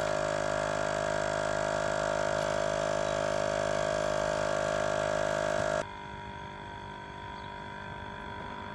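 Small portable air compressor running steadily while it inflates RV tires. It is a constant mechanical hum and whine that cuts off abruptly about six seconds in, leaving a fainter steady hum.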